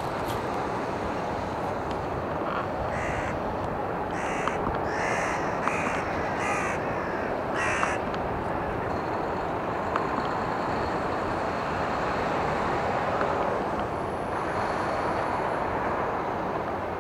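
A bird cawing about six times in quick succession between about three and eight seconds in, over the steady rumble of a Boeing 767 airliner taxiing.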